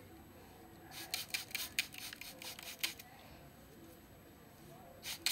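A brush dragged through wet, curly Nadula hair extensions in quick strokes, about four or five a second for around two seconds, then a pause and a few more strokes near the end.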